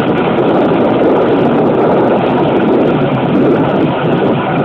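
KiHa 205 diesel railcar running along the line, heard from an open side window with wind rushing over the microphone. Steady noise throughout.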